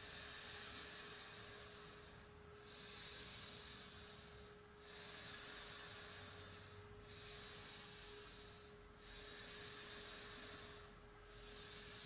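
A person breathing slowly and audibly in a yoga breathing exercise: an airy hiss that swells and eases in about two-second phases, roughly three full breaths. A faint steady hum-like tone sits underneath.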